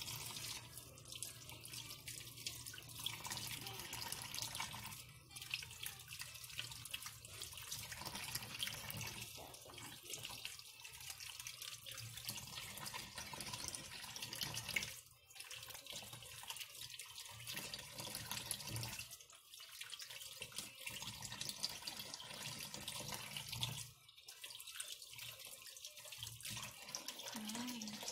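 Water from a kitchen tap running and splashing into a sink basin as ripe mangoes are washed by hand. The water sound drops away briefly several times.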